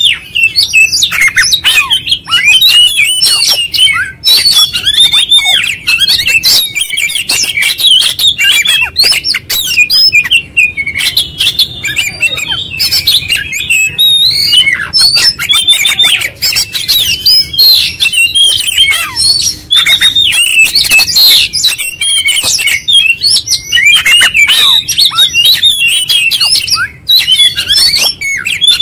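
Male oriental magpie-robin singing non-stop: a loud, rapid stream of varied whistles and chirps mixed with harsh crackling, clicking notes, the busy 'konslet' style that kacer keepers prize.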